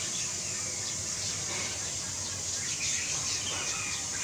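Outdoor ambience: small birds chirping now and then over a steady high-pitched insect drone.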